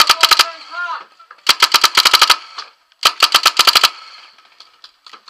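Paintball marker firing in rapid bursts, about ten shots a second: a short burst right at the start, then two bursts of about a second each.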